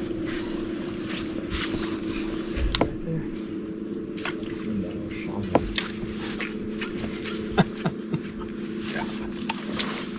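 Electric trolling motor on a bass boat humming steadily at one pitch, with scattered sharp clicks and knocks of gear on the boat.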